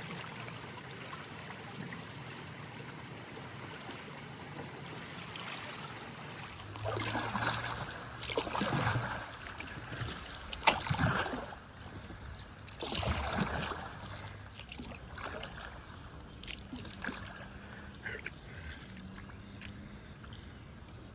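Creek water running steadily over rocks. After about six seconds come several louder splashes and sloshes in the shallow water, one with a sharp slap about ten seconds in, before the steady flow returns.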